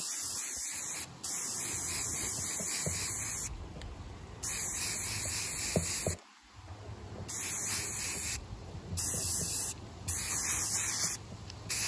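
Aerosol can of Rust-Oleum spray paint hissing in repeated bursts of about one to two seconds, with short pauses between them, as it sprays paint onto a ceramic mug.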